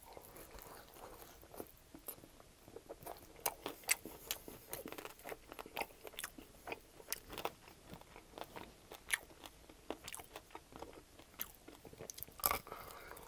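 Close-miked chewing and crunching of extra-crispy air-fried chicken wings, with many short, sharp crackles of the skin breaking between the teeth.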